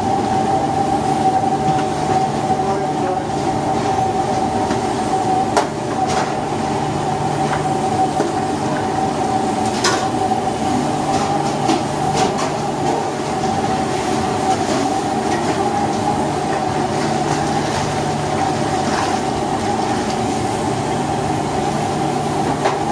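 Steady roar of a large gas burner under a wide pan of boiling saffron water and rice, with a constant whine running through it. A few short metal clinks of the ladle against the pan.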